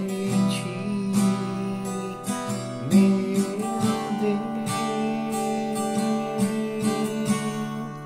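Steel-string acoustic guitar strummed in a steady rhythm of down- and up-strokes, its open chords ringing on between strokes.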